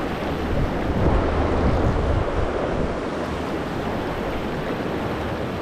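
Shallow river rushing over rocks in riffles, a steady hiss of moving water, with a low buffeting of wind on the microphone that is heavier in the first couple of seconds.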